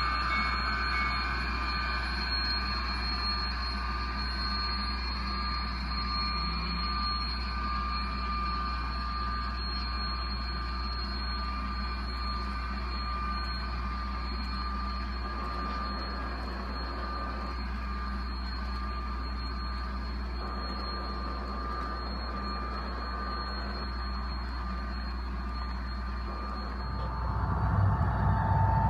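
Model railroad freight train running past: a steady low hum with thin steady whining tones from the models' motors and sound units. Near the end it gets louder as another model Santa Fe diesel locomotive comes past.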